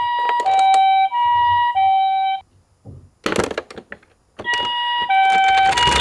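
Toy ambulance's electronic two-tone "pee-po" siren, alternating a high and a low note about every half second. It cuts out about two and a half seconds in, a short burst of knocking and rustling follows, and the siren starts again near the end.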